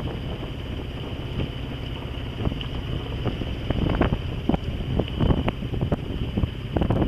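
Wind buffeting the microphone in uneven gusts aboard a sailboat under way, over a steady low rumble. The gusts grow stronger about halfway through.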